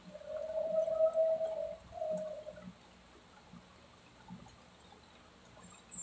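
A dog whining: one long, high, steady whine, then a shorter one, both within the first three seconds.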